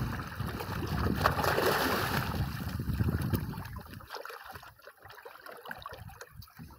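Water splashing as a hooked mahi-mahi thrashes at the surface beside the boat's hull while a fisherman grabs it by hand. The splashing is loudest in the first two seconds and dies down after about four seconds.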